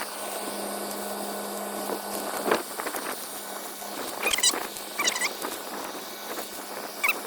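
A few short, wavering animal calls, about four and five seconds in, over a steady background hiss.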